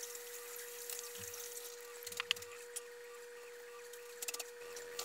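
Quiet room with a faint steady hum and a few small ticks and soft rustles from a paperback book being held open and handled.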